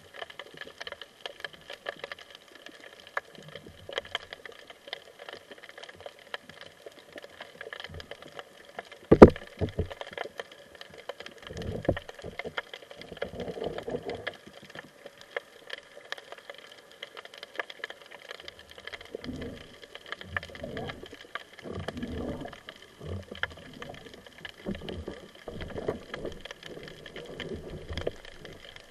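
Underwater: a speargun fires with one sharp crack about nine seconds in. Irregular knocks and rustles follow as the line is hauled in and the speared mullet is handled. A steady low hiss runs underneath.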